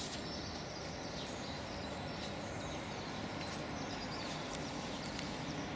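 Steady outdoor background noise, a soft even hiss, with a few faint bird chirps now and then.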